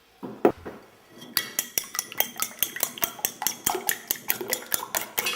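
Eggs being beaten in a bowl: a utensil clicking rapidly and evenly against the bowl, about five strokes a second, after a single knock at the start.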